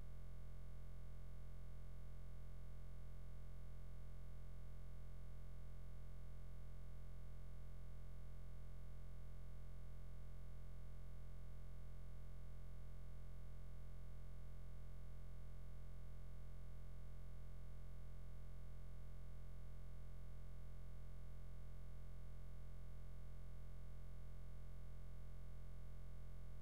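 Steady low hum, unchanging throughout, strongest at the very bottom of the range.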